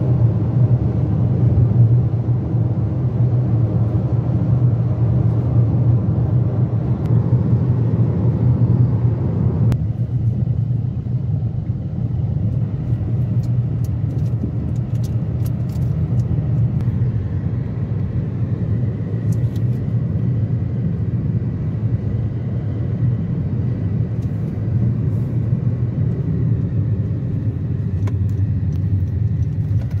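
Steady low rumble of a car's tyre and engine noise at highway speed, heard from inside the cabin. About ten seconds in it turns duller and a little quieter.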